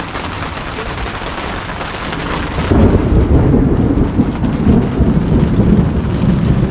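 Rain falling steadily, and about three seconds in a louder low rumble sets in and carries on.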